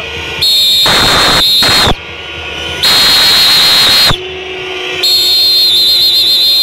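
Football stadium crowd in loud, abrupt surges, each about a second and a half long and coming about every two and a half seconds, with a shrill whistling tone over each surge and a quieter crowd roar between them.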